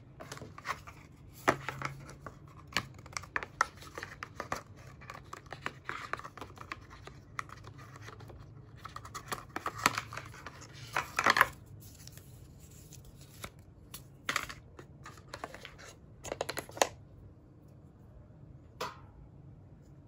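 Hands handling a stylus pen's cardboard box and paper packaging: scraping, rustling and light knocks of the card, loudest in a brief cluster about eleven seconds in, then mostly quiet near the end.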